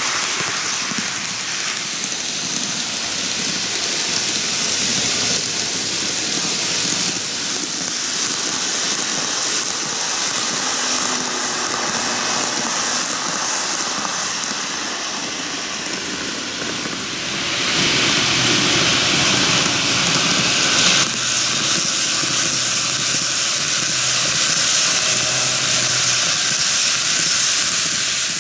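TOMIX N-gauge model trains, an Odakyu 50000 VSE and a 4000 series, running on TOMIX ballasted track: the small wheels and mechanisms give a steady rattling rush. It grows louder a little past halfway.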